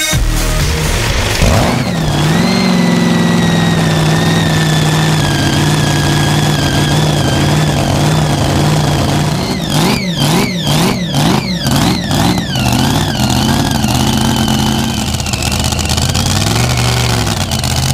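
V8 racing engine of a mini unlimited pulling tractor running steadily after being started, then revved in a quick series of throttle blips about halfway through before settling back to a steady run.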